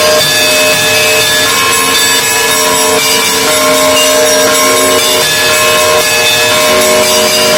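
Russian Orthodox monastery bells rung together in a continuous peal, many bells of different pitches sounding at once with their tones overlapping and ringing on.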